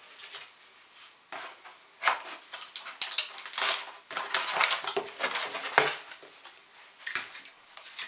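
Cardboard shipping box being torn open and unpacked by hand, giving a run of irregular scratchy rustling and tearing noises as the flaps are pulled apart and the contents handled.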